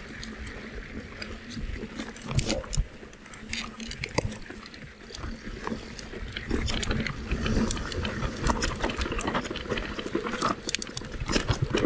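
Mountain bike riding over a rough trail: a constant run of irregular rattles, clicks and knocks from the bike over stones and roots, over a low rumble.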